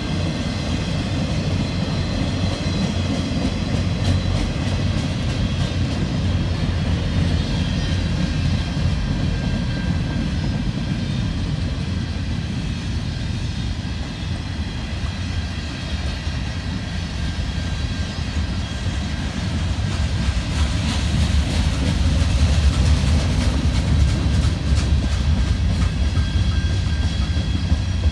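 Freight cars rolling past: a steady rumble of steel wheels on rail with scattered clicks over the rail joints and a faint high ringing. It grows louder in the last third.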